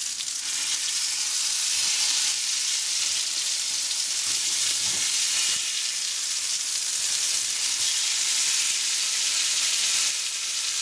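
Bubble and squeak potato cakes sizzling steadily as they fry in hot vegetable oil in a frying pan.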